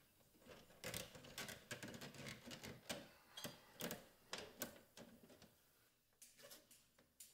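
Faint, irregular clicks and taps of hands working wires and circuit breakers in an open electrical breaker panel, with a brief pause about six seconds in.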